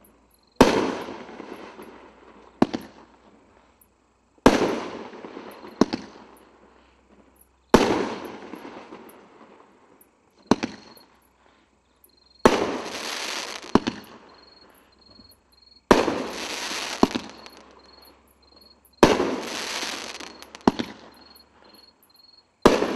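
A Forward 'Rodeo Wrangler' 500-gram firework cake firing shot after shot. There are about a dozen sharp bangs, one every one to three seconds, each followed by a noisy tail that fades over a second or two.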